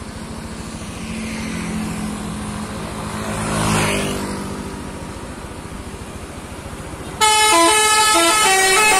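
A vehicle passes close by about four seconds in, its sound swelling and fading. About seven seconds in, the approaching intercity bus suddenly sounds a loud multi-note musical air horn of the Indonesian 'telolet' kind, stepping through a melody of changing tones.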